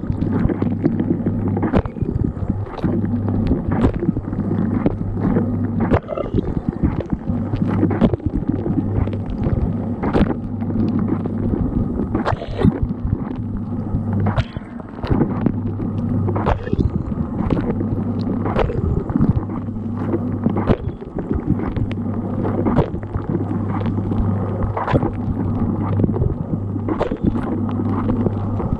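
Inside a running dishwasher: water jets spraying and splashing with many irregular sharp hits, over a low hum from the wash pump that drops out now and then.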